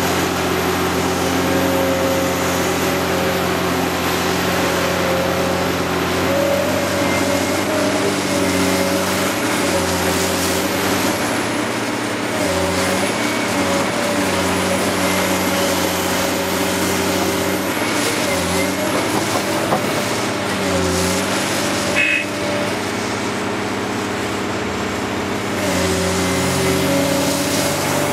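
Caterpillar 385C LME excavator's diesel engine running under working load, its pitch dipping and recovering again and again as the hydraulics swing, dump and raise the boom. A single sharp knock with a brief ringing tone about three-quarters of the way through.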